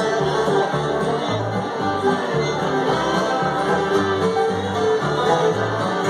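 Live bluegrass band playing: banjo, fiddle, acoustic guitar and upright bass, with the bass keeping a steady beat.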